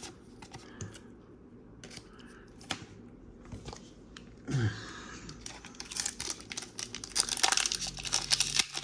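A foil Pokémon booster pack wrapper being torn open and crinkled, loud and continuous from about six seconds in, after a few seconds of soft card handling with light clicks.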